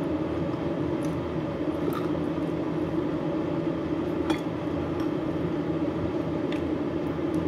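A metal spoon clinking against a ceramic rice bowl a few times, the sharpest about four seconds in, over a steady low hum.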